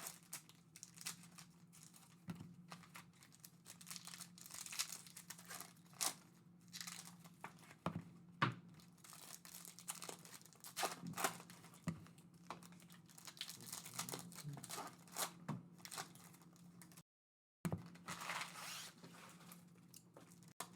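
Panini Illusions trading card packs being torn open and their wrappers crinkled, with the cards handled in between, in scattered short rustles and crackles. A faint steady low hum runs underneath.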